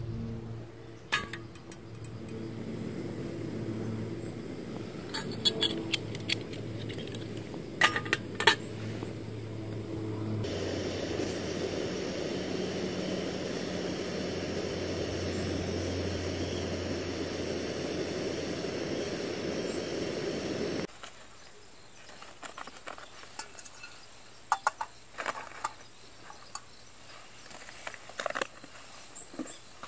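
Portable gas canister stove burning with a steady hiss under a kettle for about ten seconds, cutting off abruptly. Before it comes a low hum with light clicks from handling the stove and kettle; after it come scattered small clicks and knocks from handling the cookware.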